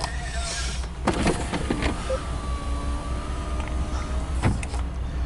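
Distant freight train led by EMD diesel locomotives crossing a bridge: a steady low rumble, with a faint whine from about a second and a half in until about four seconds. Sharp knocks come about a second in and again near the end.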